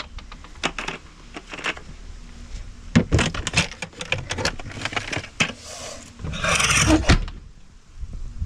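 Knocks and clatter of gear being handled and stowed in a work van's metal side compartment. A rustling scrape comes about six seconds in, then a sharp knock near seven seconds.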